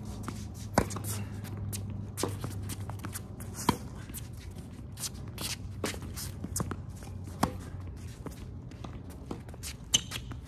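Tennis rally: the ball is struck by rackets and bounces on the court, each a sharp pop, the loudest about one and four seconds in. Between the hits come quick scuffs and shuffles of the players' shoes on the court.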